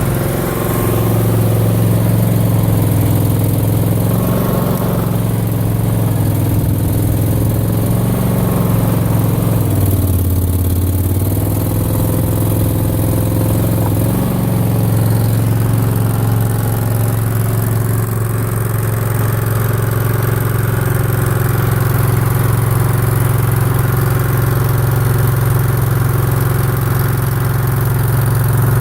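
Mini skid steer's engine running steadily, its pitch dipping briefly about ten seconds in, then returning to a steady run.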